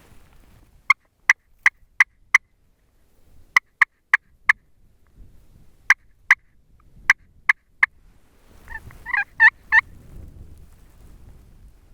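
Turkey calling: short, sharp yelps in runs of four or five, then a quick, rattling gobble-like run about nine seconds in.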